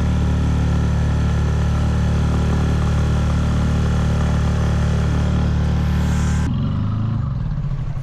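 Small motorboat's engine running steadily at cruising speed, then throttled back about six and a half seconds in, its pitch dropping and wavering as it slows down.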